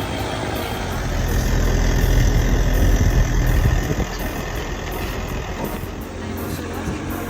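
Kraft K300 mini backhoe loader's engine running steadily, louder between about one and four seconds in, then settling.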